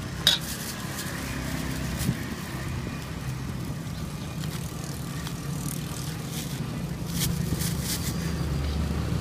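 A motor engine running steadily, growing louder toward the end, with a few sharp clicks and taps, the loudest just after the start.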